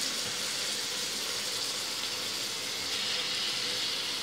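Sliced onions, green chillies and freshly added tomatoes frying in hot oil in a pot, a steady sizzling hiss.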